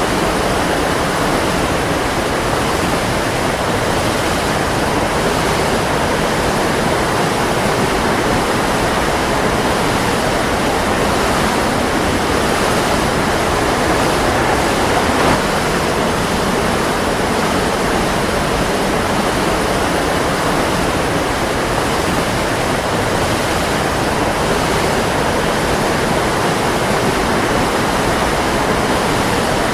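Waterfall: a steady, loud rush of falling water with no breaks.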